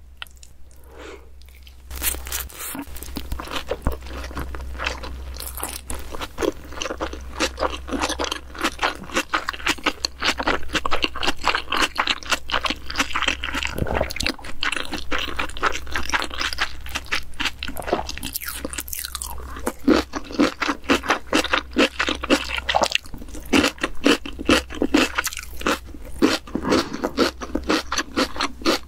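Close-up eating sounds: a person chewing crunchy food in quick, repeated bites, starting about two seconds in.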